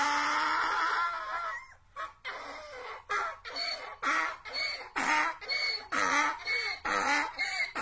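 Donkey braying: a long drawn-out call, then a quieter pause, then a rhythmic run of alternating hee-haw strokes, about two a second.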